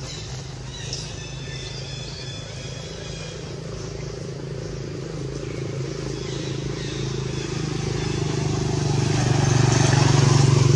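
A motor vehicle's engine droning, growing steadily louder toward the end as it approaches.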